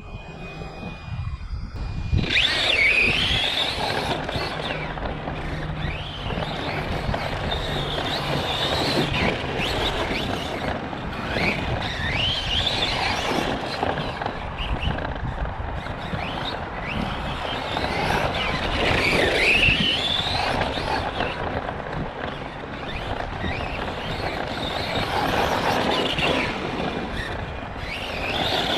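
Arrma Kraton 4S RC truck driving laps, its electric motor whining up and down in pitch as the throttle comes on and off, along with tyre and drivetrain noise. The uploader suspects an unhappy bearing or gear somewhere in the drivetrain.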